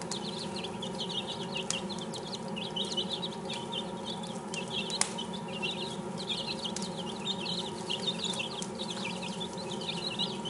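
Six-day-old chicks peeping continuously, many short overlapping cheeps, over a steady low hum. There are a few sharp clicks, the loudest about five seconds in.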